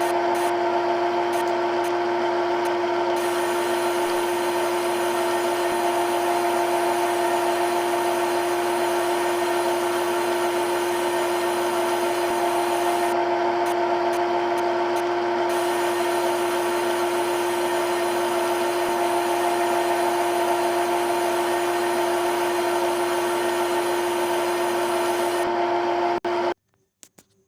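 CNC machine running and cutting: a steady whine over a hiss of cutting noise, held level, then cutting off suddenly near the end.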